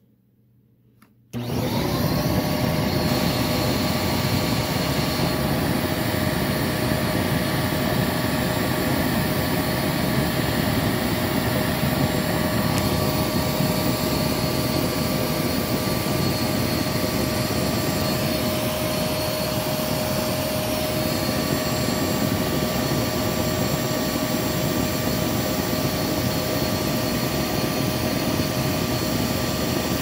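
Hoover WindTunnel V2 upright vacuum cleaner switched on about a second and a half in: the motor spins up with a brief rising whine, then runs steadily with a whine over the rush of air through the hose.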